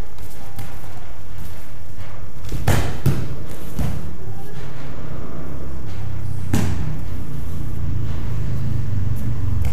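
Aikido partner being thrown and falling onto the tatami mats: two heavy thuds close together about two and a half to three seconds in, a lighter one near four seconds, and another thud about six and a half seconds in, over a steady low hum.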